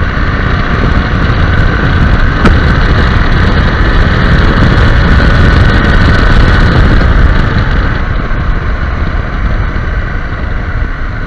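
KTM 790 Adventure motorcycle ridden at road speed, heard as a steady wind rush over the camera microphone with engine and road noise underneath. It is loudest in the middle and eases off near the end.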